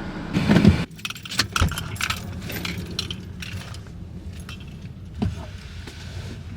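A bunch of keys jangling, with a run of short metallic clicks and jingles and a single knock a few seconds later.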